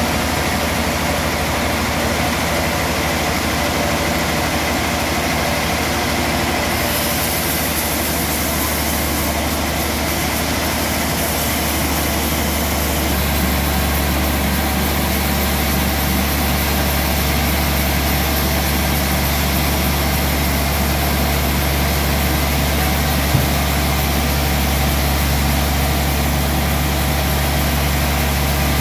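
Band sawmill running steadily with a continuous low, engine-like hum that grows stronger about halfway through. There is one short click near the end.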